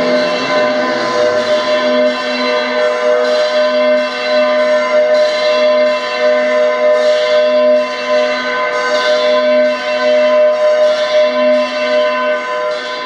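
Bell-like chimes in the dance music, a new stroke about once a second over held ringing tones, like a clock chiming.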